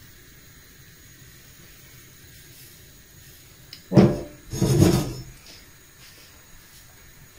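Faint steady hiss of pancake batter cooking in a hot pan on a gas hob, broken about four seconds in by two short, loud knocks with a scrape, as of the pan or a utensil against the stove or the wooden board.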